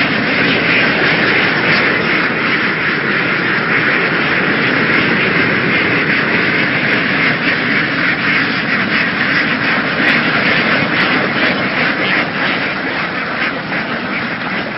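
A large flock of domestic laying ducks quacking all at once, a dense, unbroken chorus of many overlapping calls at a steady level.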